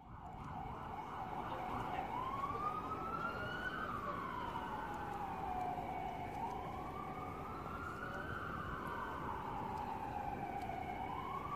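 Emergency vehicle siren: a fast warble for the first couple of seconds, then a slow wail rising and falling about every four seconds, over a low background rumble.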